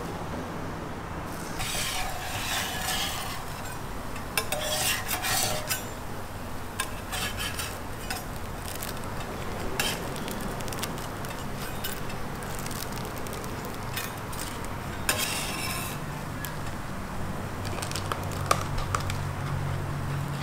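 Metal utensils scraping and clicking on a hot steel crepe griddle while a crisp, lacy crepe is worked and lifted, with light sizzling. A steady low hum runs underneath.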